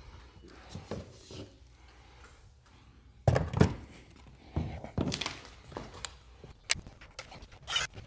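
Plastic housing of a Tesla Wall Connector knocking against its wall-mounted bracket as it is fitted and pressed on. Quiet handling at first, then two loud thunks about three seconds in, further knocks, and a few sharp clicks near the end.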